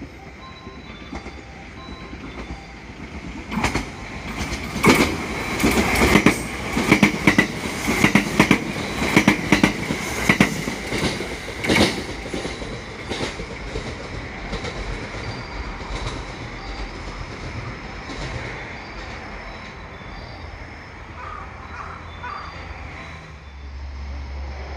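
Limited-express electric train passing through the station, its wheels clacking rapidly over rail joints for about eight seconds over a steady high whine, then dying away.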